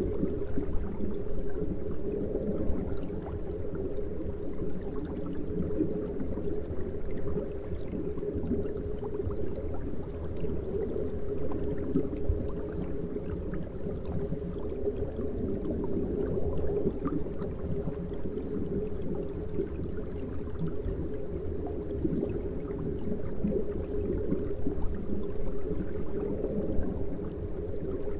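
Air-driven aquarium sponge filters bubbling steadily in the tanks, a continuous low water noise with no pauses.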